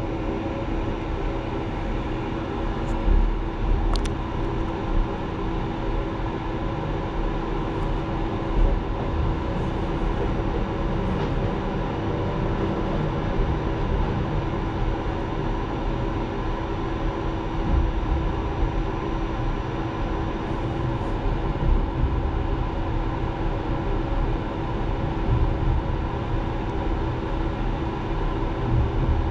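Long-distance passenger train rolling along, heard from inside its rear carriage: a steady rumble of wheels on rail with a constant hum, and one sharp click about four seconds in.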